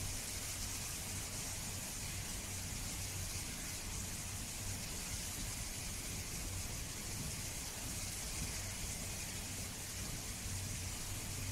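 Steady background hiss with a low, even hum underneath and no distinct sounds standing out.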